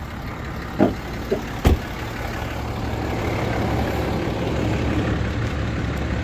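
Cummins 6.7 inline-six turbo-diesel idling with a steady low hum, with a few short knocks and clicks between about one and two seconds in; the idle grows slightly louder after them.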